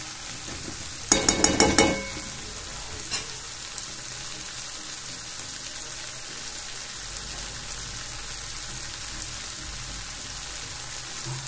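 Chopped tomatoes and spice masala sizzling steadily in oil in a kadai as they cook down. About a second in, a steel spoon clinks against the pan several times in quick succession, with one more clink shortly after.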